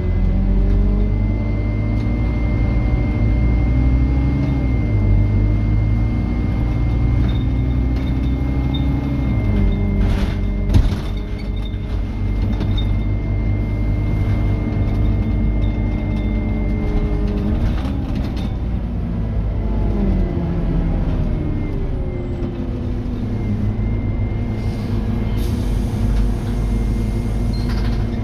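Scania N230UD double-decker bus's diesel engine working hard, its pitch climbing and dropping several times as the bus speeds up and changes gear, heard inside the upper deck. A single clunk about eleven seconds in, and a thin steady high whine through the first two-thirds.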